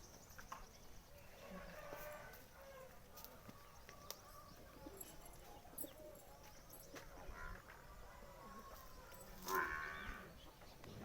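Cattle mooing faintly, with one louder call near the end.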